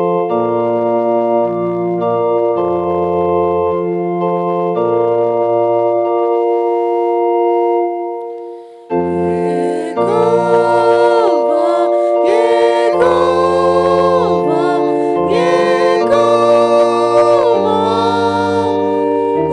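Organ playing sustained chords as the introduction to a hymn, dropping away briefly about eight seconds in. From about ten seconds in, singing joins over the organ accompaniment.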